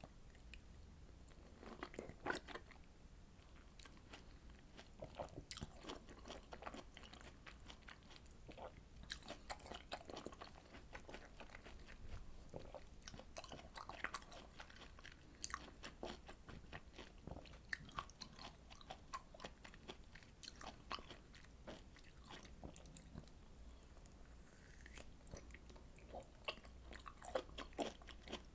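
Close-miked chewing and biting of citrus fruit (orange, mandarin or hallabong segments): a steady run of small wet crackling clicks.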